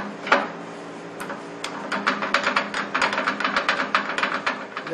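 Metal scroll chuck for a wood lathe being handled: a sharp knock just after the start, then a rapid run of light ratchet-like clicks, several a second, from about two seconds in until near the end.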